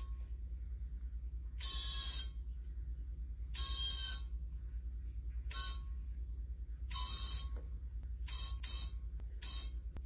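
Compressed air hissing through a trigger inflator gun into the Schrader valve of a water heater expansion tank, in seven short squeezes with the later ones shorter, topping up the tank's air pre-charge to match the home's 58 psi water pressure. A low steady hum runs underneath.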